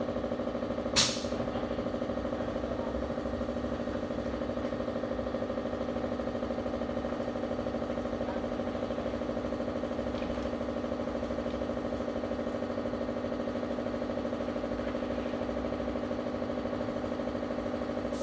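Table saw motor running steadily, a constant-pitch hum with no change in load. One sharp click about a second in.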